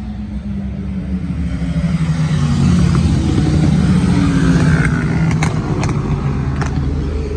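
Motorcycle engines passing, swelling to their loudest a few seconds in and then easing off, the engine note falling as they go by. A few short sharp clicks come near the middle.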